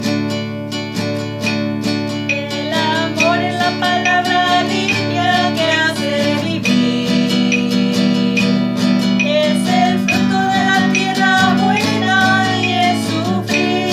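Acoustic guitar strummed in a steady rhythm, with a woman's singing voice joining the guitar about two and a half seconds in and carrying the melody.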